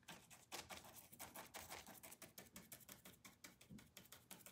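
Faint, rapid tapping of a stencil brush dabbing acrylic paint through a stencil onto a painted wooden bench, several taps a second.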